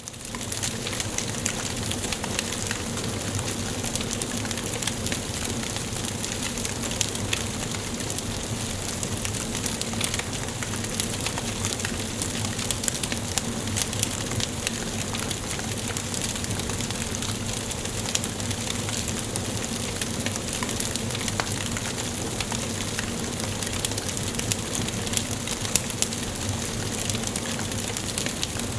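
Wood fire burning in a fireplace: a steady hiss with many small crackles and pops from the burning logs.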